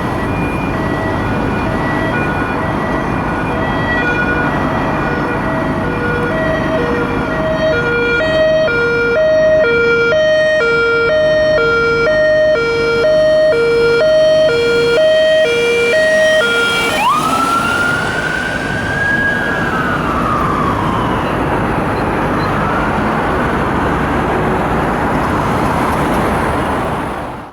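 British emergency vehicle's electronic two-tone (hi-lo) siren alternating between two notes about twice a second, getting louder as it approaches. About two-thirds of the way in it switches to a wail that sweeps sharply up, then slowly falls and fades, over steady traffic noise.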